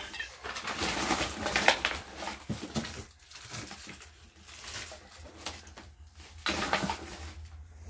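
Rustling and crunching of trash being gathered up by hand, in irregular bursts, busiest in the first three seconds and again briefly near the end.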